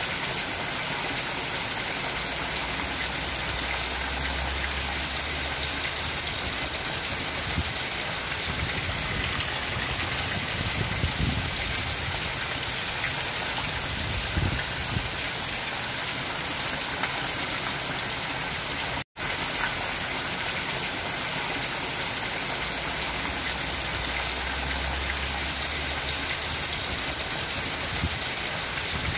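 Heavy rain falling steadily on a zinc roof and the ground, with runoff pouring off the roof edge. The sound cuts out for an instant about two-thirds of the way through.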